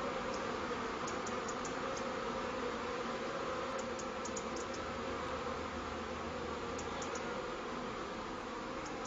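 A steady buzzing drone with scattered faint, high clicks.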